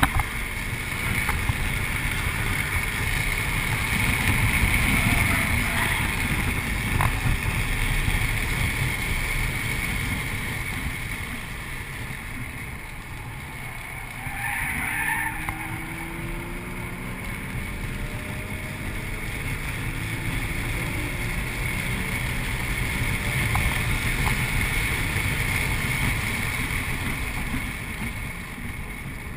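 Inside the cabin of a 2008 Audi RS4 at track speed: its 4.2-litre V8 running hard under heavy wind and road noise. The sound dips about halfway through, then the engine note climbs again as the car accelerates out of a corner.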